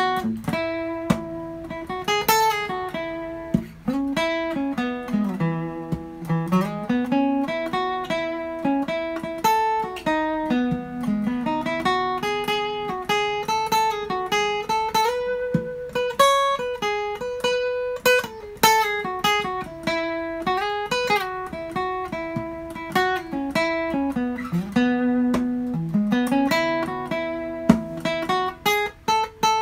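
Unaccompanied steel-string acoustic guitar playing a picked single-note lead solo that outlines the chord tones of a slow country ballad, with some notes sliding in pitch into the next.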